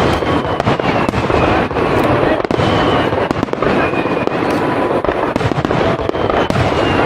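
Fireworks display in a rapid barrage: aerial shell bursts and crackle following one another so closely that the booms run together without a break, with thin whistling tones now and then.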